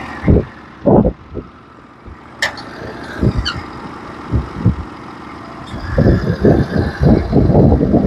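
Portable bandsaw mill's engine running at idle, with irregular gusts of wind thumping on the microphone, heaviest near the end. There is one sharp click about two and a half seconds in.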